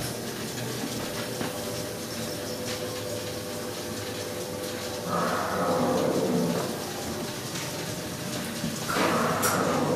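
Steady machine hum from a ghost train's running prop machinery, with spinning motor-driven wheels. Two louder rushing swells rise and fade, about five seconds in and again near the end.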